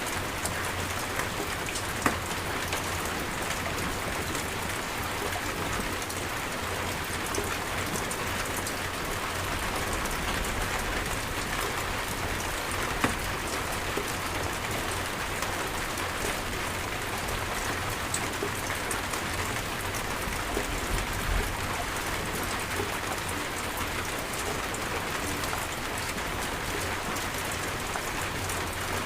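Steady heavy rain falling on surfaces, a dense even hiss with a low rumble beneath and fine pattering drops, with a couple of sharper single drop hits about 2 and 13 seconds in.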